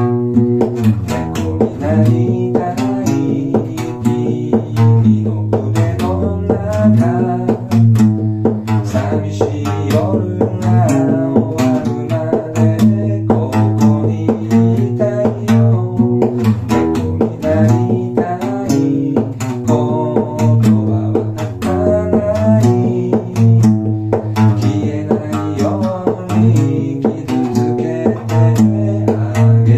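An acoustic guitar strung with only one string, plucked in a steady run of notes that carries both a melody and a deep bass line.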